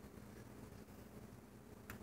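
Near silence: room tone with a steady low hum and one faint click just before the end.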